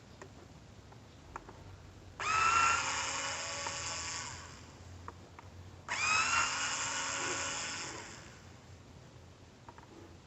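A small electric motor whirring in two short runs of about two seconds each. Each run spins up with a quickly rising whine that then holds steady, and winds down at the end.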